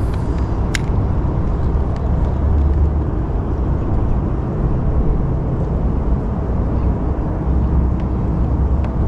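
Wind buffeting the camera microphone: a loud, low rumble that swells and eases in gusts. A single sharp click comes a little under a second in.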